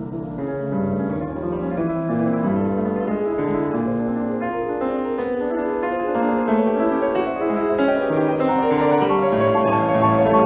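Solo piano playing fast, closely packed running figures, growing gradually louder. The sound is that of a 1939 studio recording, thin and lacking the highest frequencies.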